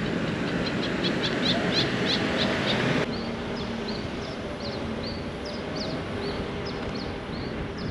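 A car driving slowly, its steady road and engine noise underneath, with a bird chirping repeatedly in short high notes. The chirps come several a second at first and more sparsely after the background hiss drops suddenly about three seconds in.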